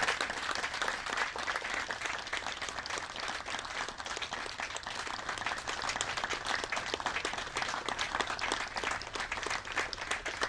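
A small audience applauding, loudest at the start and then steady, thinning to separate hand claps near the end.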